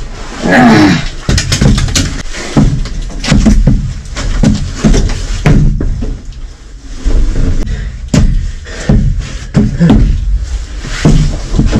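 Repeated knocks, bangs and rattles of a police van's metal cage door being forced and pushed open from inside.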